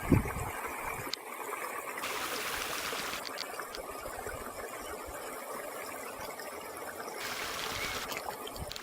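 Steady rush of running water, like a small stream.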